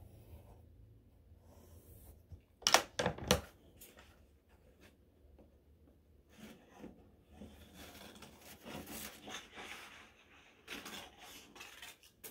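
Pencil scratching on construction paper as a shape is drawn, then scissors cutting through the paper in a series of short snips. A cluster of louder sharp clacks comes about three seconds in.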